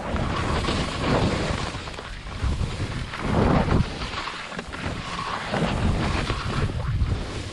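Skis hissing and scraping through snow in a series of turns, with wind rushing over the microphone; the noise swells and fades with each turn.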